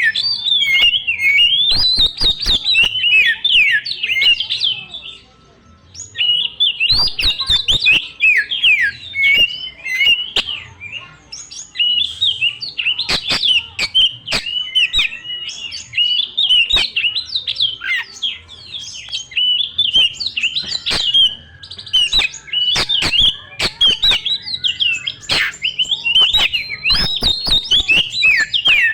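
Oriental magpie-robin (kacer) singing loudly and without let-up: a rapid stream of varied whistled phrases and mimicked notes, broken by one short pause about five seconds in. Sharp clicks run through the song.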